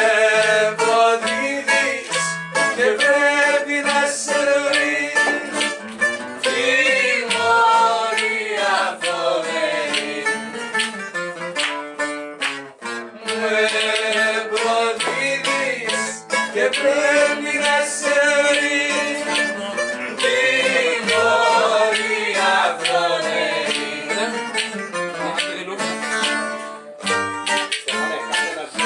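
Rebetiko played live on bouzouki and acoustic guitar, with a voice singing the melody.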